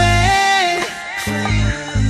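Live band music with a male lead vocal: the singer holds a long note over the band in the first second, with heavy bass notes underneath.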